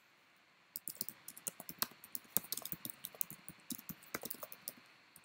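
Typing on a computer keyboard: a quick, uneven run of key clicks that starts about a second in, as a command is entered at a terminal.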